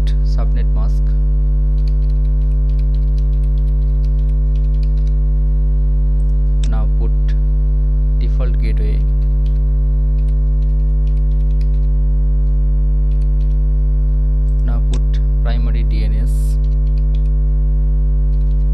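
Loud, steady electrical mains hum with a low buzz and its overtones. Over it, computer keyboard keys click in short runs as numbers are typed in.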